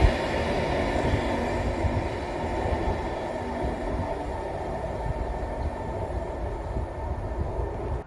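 Freight train of box wagons rolling away on the rails, a steady rumble of wheels that slowly fades, with a sharp knock right at the start.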